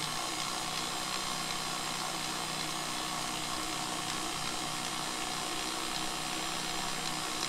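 KitchenAid stand mixer's electric motor running at a steady hum, driving the grinder attachment that pushes ground meat through the stuffing tube into a natural hog casing.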